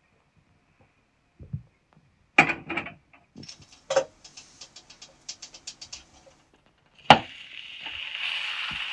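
A frying pan and utensils clatter and knock a few times, with light rapid ticking in between. A sharp knock about seven seconds in is followed by a steady sizzle of eggs frying in the pan.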